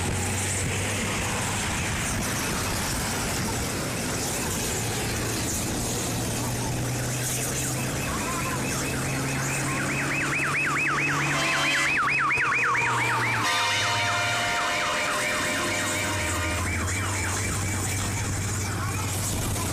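An electronic siren warbling fast, coming in about eight seconds in and loudest a few seconds later, briefly joined by a steady held tone. Beneath it there is a steady low engine hum and background noise.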